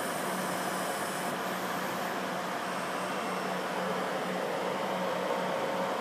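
Laser cutter running: a steady rushing fan noise with a low hum, and a faint high whine that stops about a second and a half in.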